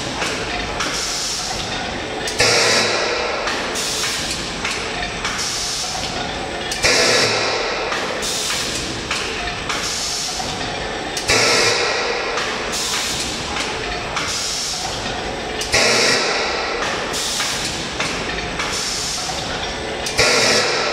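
Egg-tray moulding machine running in automatic production. About every four and a half seconds a sudden burst of high, hissing noise rises over steady machine noise and fades over the next few seconds, repeating with each machine cycle.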